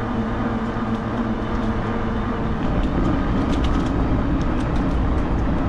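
Mountain bike riding down a leaf-covered forest trail: a steady rumble of tyres and wind on the microphone, with scattered clicks and rattles from stones and the bike's parts.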